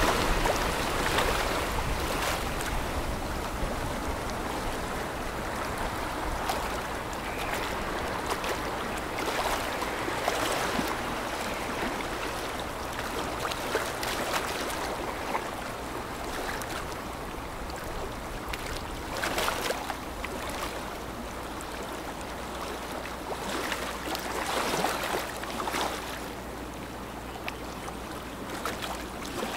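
Rushing, splashing water of a container ship's bow wave and wake, a steady wash that slowly eases and swells briefly a few times, over a faint low steady hum.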